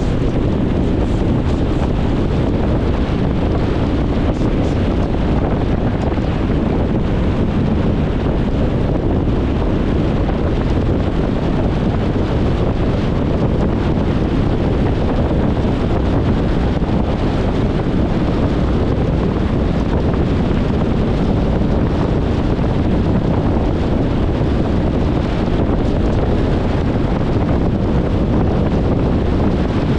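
Steady road noise of a car driving: a low tyre-and-wind rumble, even and unchanging.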